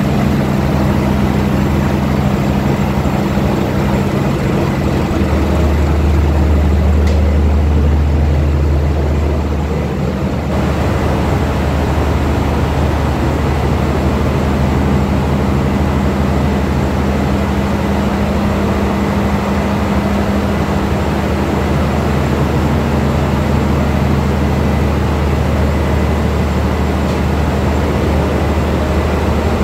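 Ship's engine room with its diesel engines running: a loud, steady drone with a deep hum, louder for a few seconds between about five and ten seconds in.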